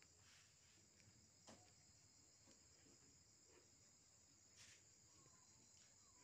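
Near silence, with insects trilling faintly and steadily and a couple of soft clicks.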